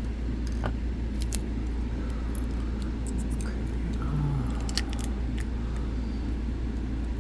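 Light metallic clicks and clinks of small lockpicking tools being sorted and handled on a table, a few at a time, over a steady low hum.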